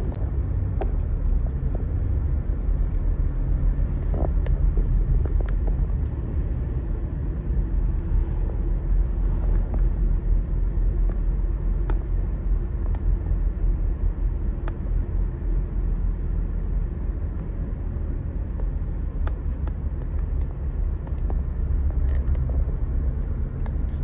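Road noise inside a moving car's cabin: a steady low rumble of tyres and engine, with a few faint ticks.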